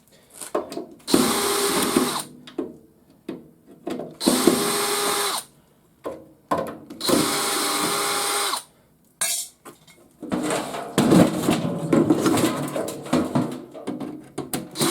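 Cordless drill-driver running in short bursts, three of about a second each, then a longer uneven run, removing screws to take apart a garage door opener.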